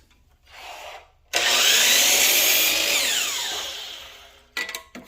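Power saw cutting a piece of wooden paint stick: the motor cuts in suddenly at full speed, runs for about a second and a half, then winds down with a falling whine. A few knocks follow near the end.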